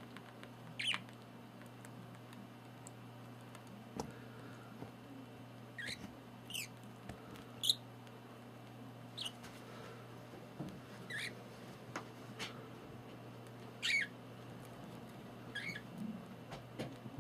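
Budgerigar giving short, high chirps, about eight of them spaced a second or more apart, with a few sharp clicks between them and a steady low hum underneath.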